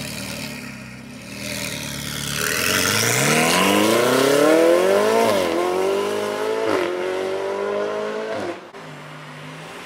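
Ferrari V8 sports car pulling away from a low idle and accelerating hard, its engine note climbing steadily and briefly dipping at two upshifts about five and seven seconds in. The note cuts off sharply near the end, leaving a lower, steady engine tone.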